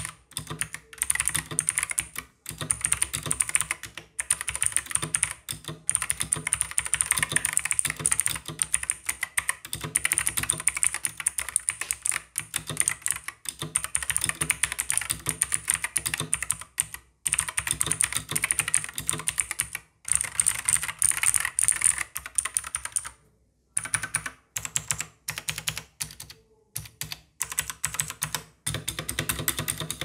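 Fast typing on a Fuhlen M87S tenkeyless mechanical keyboard with Huano Blue clicky switches and PBT pudding keycaps: a dense clatter of clicky keystrokes, broken by a brief pause about 23 seconds in, with slower single presses near the end.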